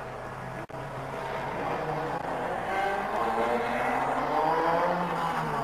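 Racing hatchback's engine running hard on a circuit, its pitch rising and falling as the car drives. The sound drops out for an instant under a second in.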